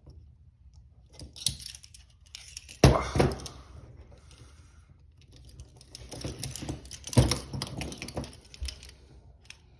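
Steel handcuffs and their chains clinking and clacking while a plastic clip key is fumbled at the cuff keyholes, with rustling in between. Two groups of clatter stand out, the loudest clacks coming about three seconds in and again about seven seconds in.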